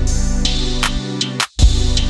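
Background music with a steady beat and drum hits. It cuts out for an instant about one and a half seconds in, then starts again from the top.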